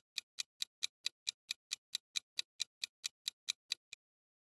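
Clock-tick sound effect of a quiz countdown timer: fast, even ticks about four or five a second, stopping suddenly about four seconds in, the last tick fainter.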